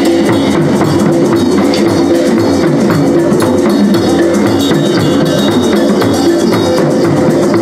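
Hand drums (djembes and congas) played in a steady, driving rhythm by a drum circle, with sustained pitched tones running underneath.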